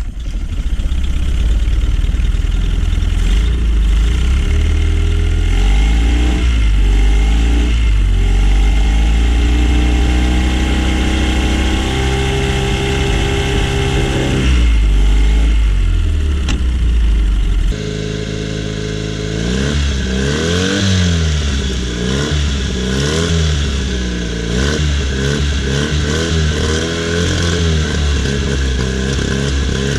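A 1983 Honda 9.9 four-stroke outboard motor running steadily on its own fuel, now that its clogged carburetor main jet has been cleaned. A little over halfway through it drops in level and then revs up and down repeatedly.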